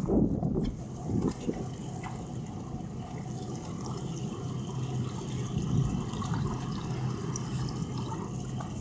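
Water lapping and trickling against the boat's hull over the low, steady hum of idling outboard motors, with a brief buffet of wind on the microphone at the very start.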